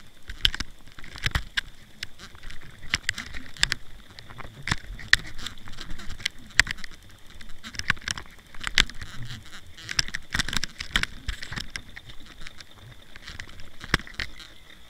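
Irregular sharp clicks and knocks heard underwater through a camera lowered on a mackerel handline, as hooked mackerel jerk the line and rig against it.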